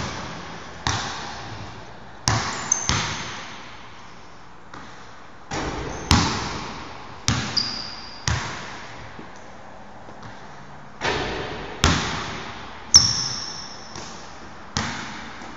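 Basketball bouncing on a hardwood gym floor: about a dozen irregularly spaced thuds, each trailing off in the echo of a large hall, with two brief high-pitched squeaks among them.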